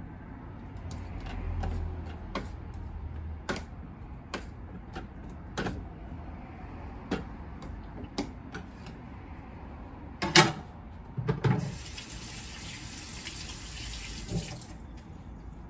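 A spoon clicking and scraping against a dish as okra is turned in batter, with a few louder knocks about ten seconds in. Then a kitchen tap runs steadily for about three seconds and shuts off.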